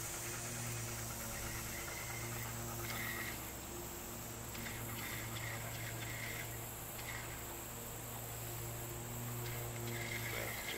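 Steady low electric hum of a boat's trolling motor running at slow speed. Insects chirp in short high-pitched spells over it.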